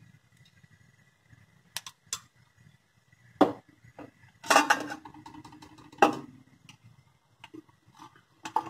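Metal kitchen utensils and pans clattering: a scattering of sharp knocks and clinks, the loudest two about three and a half and six seconds in, each with a short ring.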